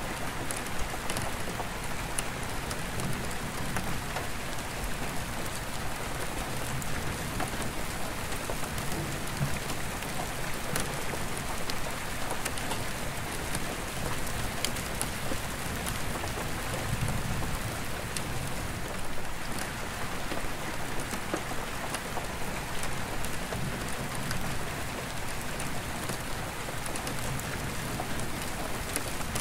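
Steady rain on an attic skylight: a constant hiss with scattered ticks of single drops on the glass. Distant deep thunder rumbles low several times, most strongly a little past halfway.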